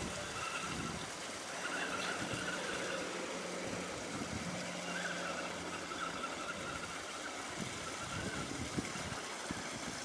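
Axial Wraith RC rock crawler's electric motor and drivetrain gears whining as it drives over rock and gravel, the whine wavering in pitch with throttle, with a few light knocks of tyres and chassis on stones in the second half.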